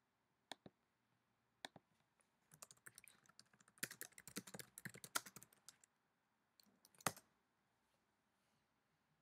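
Typing on a computer keyboard: a few single keystrokes, then a quick run of key presses from about two and a half to six seconds in, then a few more ending in one sharper keystroke about seven seconds in.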